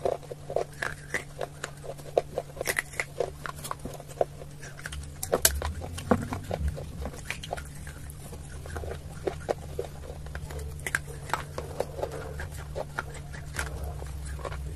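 Baked terracotta clay pot being bitten and chewed: pieces of the unglazed clay rim crunch and crack in the mouth in quick, irregular crunches. A steady low hum runs underneath.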